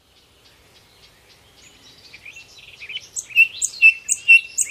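Birds chirping, fading in from near silence and growing louder. Toward the end one bird repeats a sharp chirp about twice a second.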